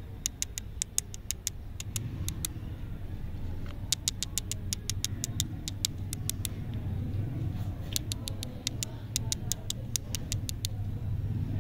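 Three runs of quick, evenly spaced sharp clicks, several a second, over a steady low rumble.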